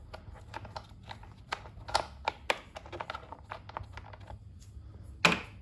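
Irregular light clicks and taps of a hand tool working a bolt out of a motorcycle's plastic side fairing. A louder scrape comes near the end.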